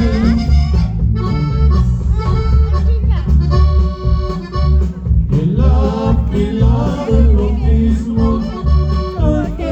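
Live conjunto norteño band playing, with the accordion leading over a steady pulsing bass beat.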